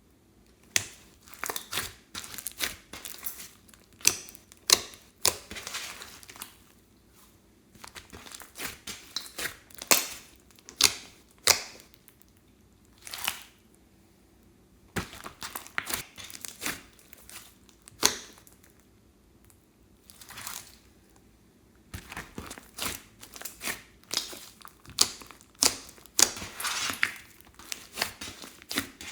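Slime being worked by hand, giving off irregular sticky pops and crackles in clusters with short quiet pauses between them.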